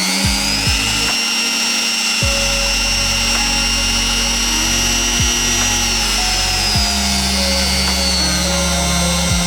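Cheap trim router running free without cutting, a high motor whine that rises in pitch at the start, holds steady, and drops again near the end. Background music plays underneath.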